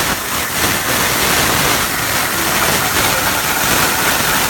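CNC plasma cutter's torch cutting metal: a loud, steady hissing roar with a faint high whine running through it.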